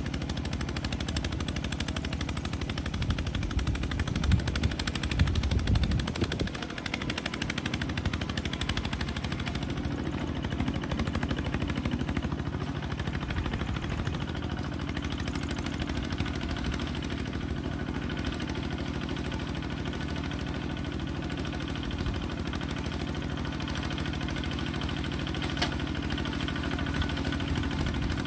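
Small bulldozer's engine running steadily with a fast, rattling exhaust beat, surging louder about four to six seconds in.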